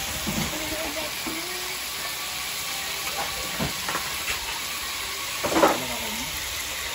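Pork belly slices sizzling steadily on a grill pan over a portable gas stove. Faint snatches of voices come through, and there is a brief louder sound about five and a half seconds in.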